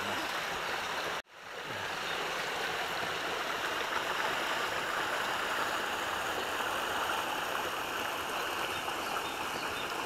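A mountain stream rushing steadily, a continuous even wash of water noise. It drops out briefly about a second in and then fades back up.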